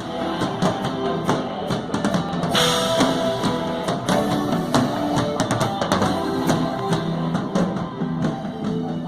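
Rock music begins abruptly: a band's drum kit and guitar play an instrumental intro with a steady beat.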